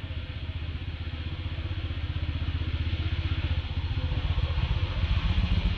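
A motor vehicle engine running with a fast, even pulse, growing slowly louder.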